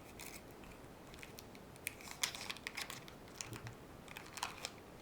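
Trading cards handled by hand, flipped and slid against one another, making irregular light clicks and rustles.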